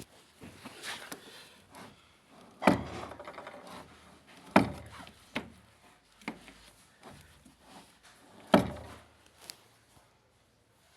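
Handling noises: three loud sharp knocks, a few lighter knocks and a stretch of scraping and rattling after the first knock.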